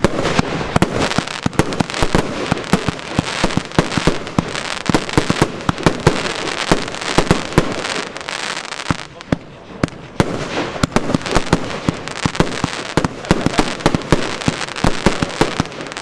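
Evolution Snowstorm 2 firework shooting: a fast, dense run of bangs and crackles that thins out briefly about nine seconds in, then picks up again.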